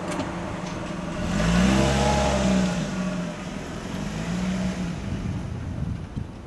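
A car engine passing close by, its pitch rising and then falling, loudest from about one and a half to two and a half seconds in, with a second, weaker rise and fall a couple of seconds later.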